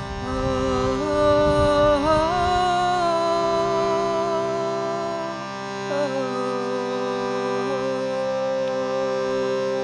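A shruti box sounds a steady bellows-pumped drone chord. Over it, a woman sings long held notes that step up and down between pitches.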